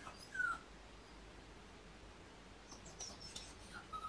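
Miniature pinscher whining: a short, high falling whimper about half a second in and more short whimpers near the end, with faint high squeaks between. This is the whining of a dog left home alone with separation anxiety.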